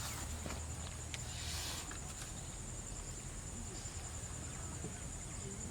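Outdoor ambience with a steady high-pitched insect trill, and a brief rustle about a second and a half in.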